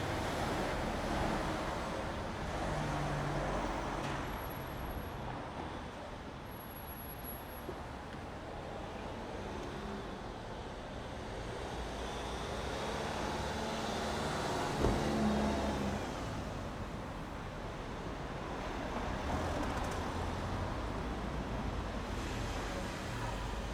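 City street traffic: cars and buses passing in a steady wash of road noise that swells and fades. A single sharp knock about fifteen seconds in is the loudest moment.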